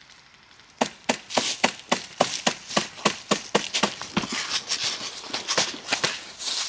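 Airsoft guns firing single shots in quick, irregular succession, starting about a second in and going on to the end.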